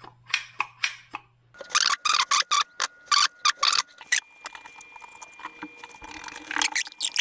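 Small metal parts of a turbocharger shutoff valve clicking and rattling as it is put together by hand. Sharp single clicks at first, then a denser clatter about a second and a half in, then scattered clicks.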